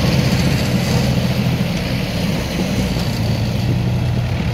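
Tractor diesel engine running steadily at idle, with an even firing beat.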